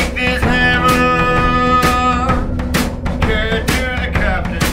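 Music: a steady drum beat with long held melodic notes over it.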